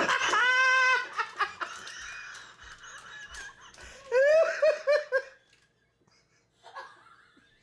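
A person laughing at a high pitch: a long held squeal of laughter at the start, then a quick run of "ha-ha" laughs, about five a second, some four seconds in, then near quiet.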